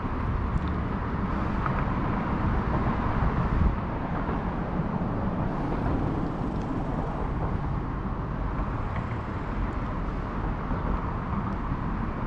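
Steady outdoor background noise with no distinct events, strongest low down.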